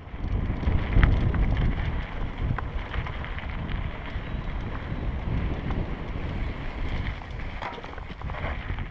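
Wind buffeting a helmet-mounted camera microphone while riding a mountain bike down a dirt singletrack, with tyre noise on the dirt and scattered clicks and rattles from the bike.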